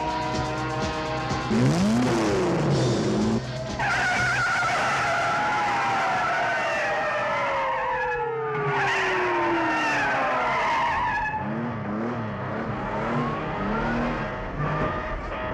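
Car-chase soundtrack: car engines running hard and tyres squealing through skids, with several long squeals gliding in pitch, over background music.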